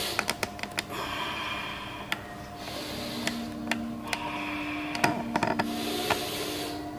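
A person breathing out hard in time with alternating dumbbell curls, a breath about every second and a half, with scattered light metallic clicks from the loose plates of the dumbbells.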